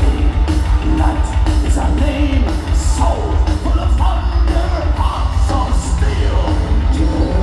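Heavy metal band playing live in an arena, loud, with a very heavy low end and a singer's voice wavering up and down over the band about halfway through.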